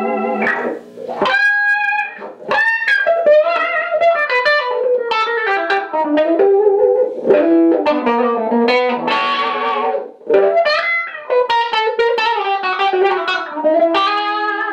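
Electric guitar played through a 1970s DeArmond 1802 Weeper wah pedal into a small homebuilt amp, mixing picked single notes and chords. The tone sweeps up and down as the pedal is rocked, which shows the repaired wah working.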